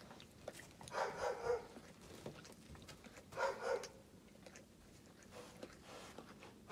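Black wolf licking its forepaw to groom itself: short bouts of wet licking strokes, one about a second in and another about three and a half seconds in.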